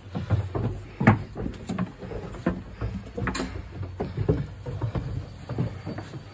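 Footsteps of several people walking on a stone floor, an irregular run of knocks and thumps about two a second, with a couple of sharper clicks.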